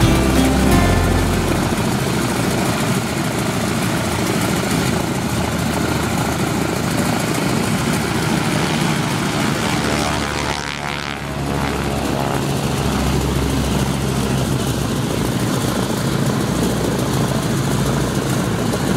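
Harvard trainers' Pratt & Whitney R-1340 radial engines running with propeller noise, steady and loud, with a sweeping shift in tone about ten seconds in.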